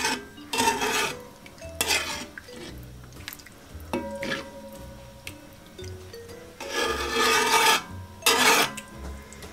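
Metal spoon stirring a thick cream-and-beef sauce, scraping against the sides and bottom of a metal cooking pot in about five separate strokes, the longest about seven seconds in. Light background music underneath.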